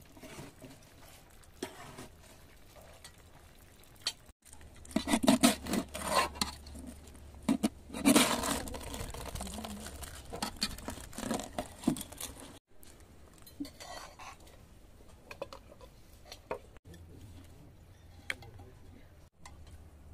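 Crisp rice crust (tahdig) being broken and scraped from the bottom of a large metal pot: a dense run of crunching and metal scraping in the middle. Before and after it come quieter clinks of spoons on plates as people eat.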